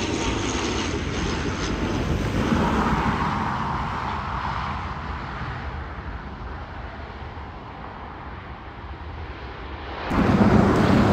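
ATR 72 twin-turboprop engines and propellers on landing, the sound fading steadily as the aircraft rolls away down the runway. About ten seconds in, louder aircraft noise starts suddenly.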